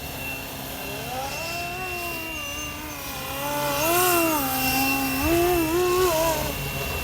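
FlyWing MH-60T Jayhawk electric RC helicopter in flight, its motor and rotor whine rising and falling in pitch as the throttle changes, louder from about four seconds in.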